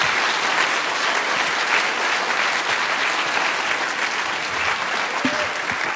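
Audience applauding, easing off a little near the end.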